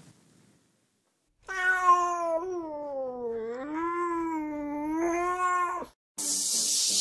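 A domestic cat giving one long, drawn-out meow that dips in pitch in the middle and rises again. Near the end a sudden loud hiss cuts in.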